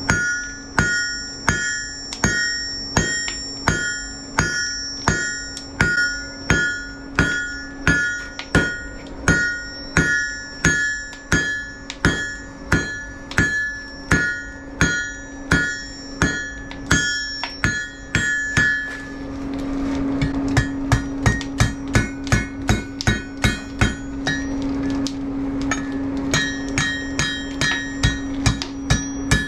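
Blacksmith's hand hammer striking a red-hot iron bar on an anvil while forging a wall hook, a steady rhythm of about one and a half blows a second, each with a bright metallic ring from the anvil. About two-thirds of the way through, the blows turn quicker and duller without the ring for several seconds, then the ringing strikes come back near the end. A steady low hum runs underneath.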